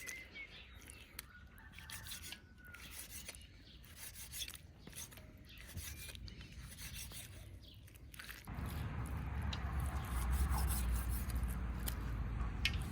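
Irregular scraping and rubbing strokes. About eight seconds in, a steady low rumble sets in under them, with a few sharp clicks.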